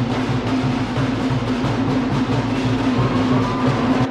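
Music driven by heavy drumming.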